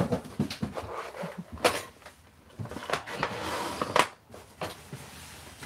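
A clear plastic clamshell container and a small cardboard box being handled and stacked on a table: a string of knocks and clicks with some rustling, the loudest knock about four seconds in.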